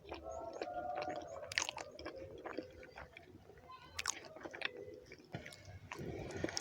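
Close-up chewing of a mouthful of rice and beans, with many short irregular mouth clicks.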